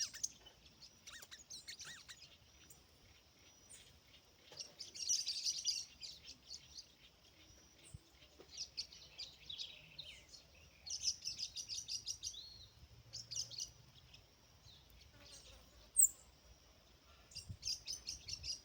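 Rufous-collared sparrow (tico-tico) chirping: short runs of quick, high chirps every couple of seconds, with one sharp louder chirp near the end.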